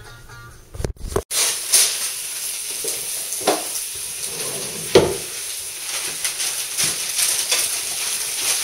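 Steak frying in a pan, starting about a second in: a steady sizzle with scattered pops of spitting fat.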